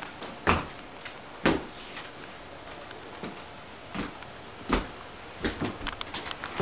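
Footsteps on a hard floor, about one a second, then a run of quicker clicks and knocks near the end.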